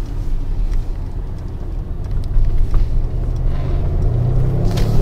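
Cabin sound of a 2020 Mercedes-AMG GLC63 S Coupe's twin-turbo V8 under a steady low road rumble. The engine note rises gradually over the last second or two as the car starts to accelerate.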